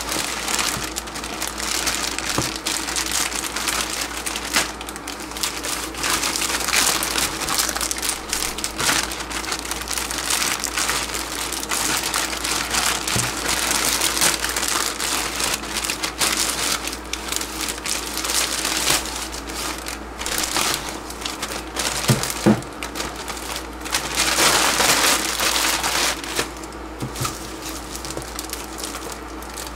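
Plastic courier mailer bag crinkling and rustling continuously as hands tear it open and pull a plastic-wrapped box out of it. A couple of sharp knocks about three-quarters of the way through.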